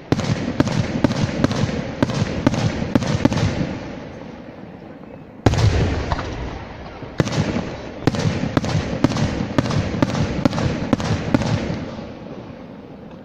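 Aerial firework shells bursting in two quick volleys of sharp bangs, about three a second, with one heavy boom about five and a half seconds in between them. The rumble dies away after each volley.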